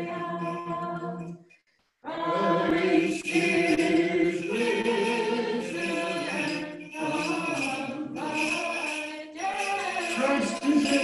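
Church choir singing a liturgical hymn a cappella, breaking off abruptly for about half a second roughly a second and a half in, then carrying on.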